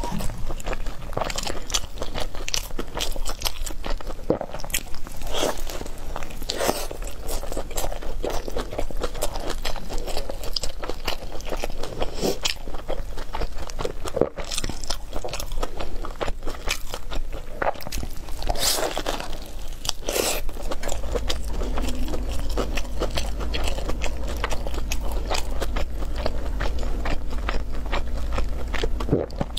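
Close-miked crunchy biting and chewing of a loaded shou zhua bing (Chinese flaky pancake wrap): a steady run of crisp crunches and wet chews.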